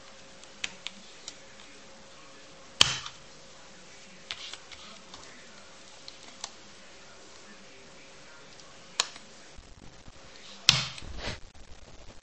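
Scattered clicks and taps of plastic keycaps being worked on an Apple keyboard, with three sharper, louder clicks: about three seconds in, about nine seconds in, and near the end.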